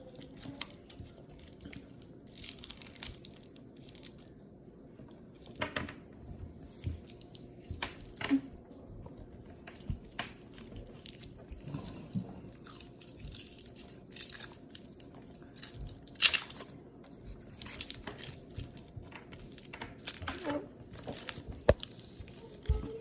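Snack wrappers being torn open and crinkled, with bits of crunching and chewing, in short scattered bursts.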